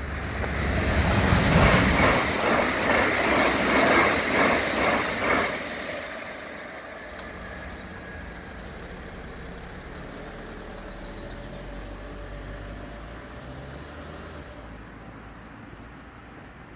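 Train passing over a level crossing, its wheels clacking over the rail joints about two and a half times a second, then fading out after about five seconds into a quieter steady rumble.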